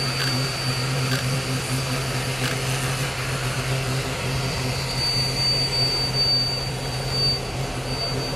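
Diesel locomotive engine running with a steady low drone as it creeps slowly past a standing steam locomotive, with a steady high tone over it and about three faint clicks in the first few seconds.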